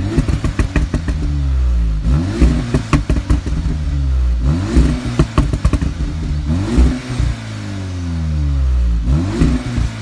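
Audi S3 8V's 2.0-litre turbocharged four-cylinder revved five times at standstill through its stock exhaust, each blip rising and falling back to idle. Some lift-offs bring crackles and pops from the exhaust.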